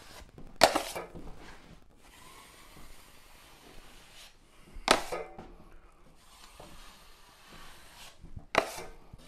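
8-inch steel drywall taping knife scraping joint compound while feathering a seam. There are three short, loud scrapes about four seconds apart, with softer swishing of the knife over the wall between them.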